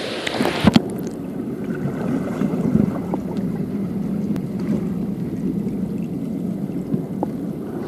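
Muffled underwater sound of a swimming pool heard by a submerged camera: a steady low rumble of moving water. A couple of sharp splashes as the camera goes under about a second in.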